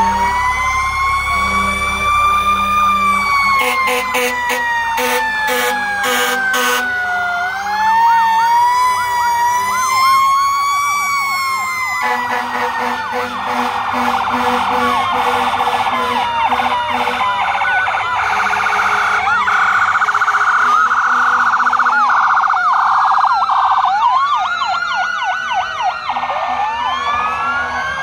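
Sirens of fire trucks passing in a parade, several sounding at once: a slow wail that rises and falls, joined from about eight seconds in by fast overlapping yelping sweeps.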